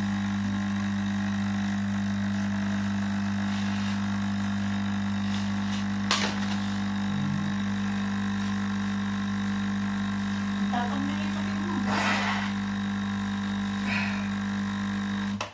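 Electric coffee machine running with a loud, steady buzzing hum that cuts off abruptly at the end, with a few light clicks and knocks over it.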